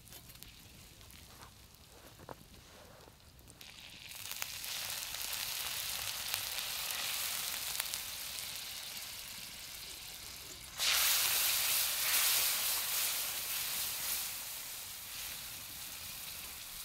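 Hot butter-and-sugar caramel in a steel frying pan sizzling hard as liquid goes in. It starts quietly with a few faint clicks and builds to a loud hiss about four seconds in. About eleven seconds in it jumps sharply louder, then slowly dies down.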